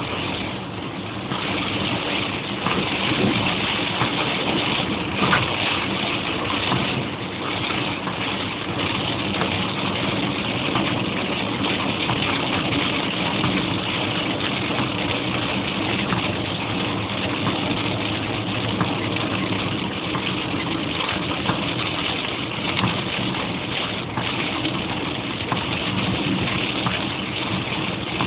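Car driving through heavy rain: a steady hiss of rain and tyres on the wet road, with the engine running underneath.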